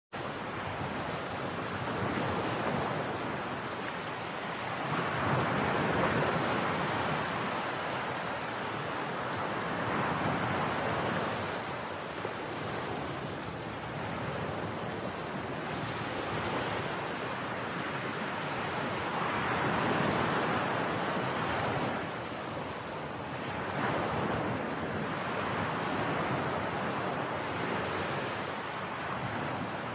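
Wind and water noise on a riverbank: an even rushing hiss that swells and eases every few seconds.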